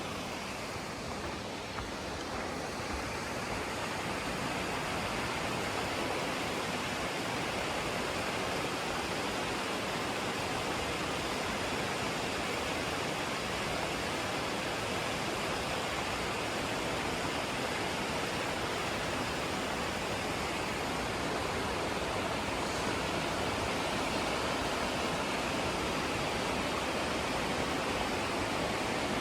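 Junction Creek Falls, a mountain waterfall, rushing steadily, growing a little louder over the first few seconds and then holding even.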